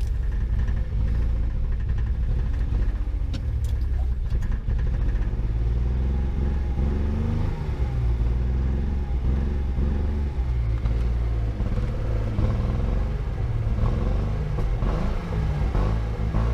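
1975 Datsun 280Z's fuel-injected straight-six running as the car is driven, a steady low rumble whose pitch wavers up and down through the second half. It runs poorly on its new injectors, which the owner suspects is down to a clogged fuel filter.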